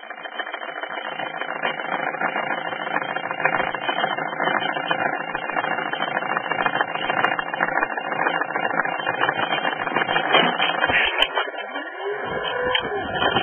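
Small motor of a camera-carrying model running steadily with a fast buzz, heard close through the camera's own microphone.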